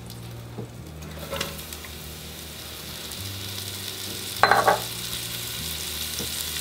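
Mushrooms sizzling in hot oil in a very hot, smoking stainless steel sauté pan just after being tipped in; the sizzle grows steadily. There is a small sound about a second and a half in and a short, louder one about four and a half seconds in.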